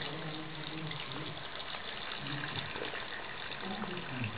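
Water tap running steadily into a sink, with a low voice talking in the background near the start and near the end.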